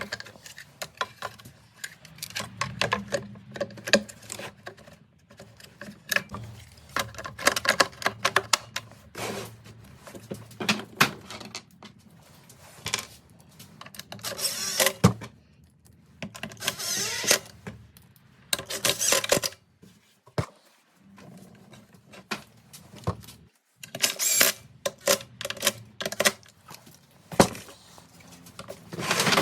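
Hand tools working on a two-stroke blower engine: bursts of rapid metallic clicking and clatter every few seconds, over a low steady hum.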